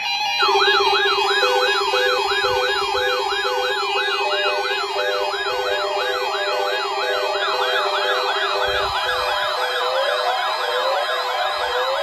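Many weather alert radios sound their alert alarms together, set off by an EAS Required Weekly Test. They make siren-like rising and falling wails a couple of times a second, with a steady low tone and a run of beeps underneath. More radios join in, so the wails pile up and overlap in the later seconds.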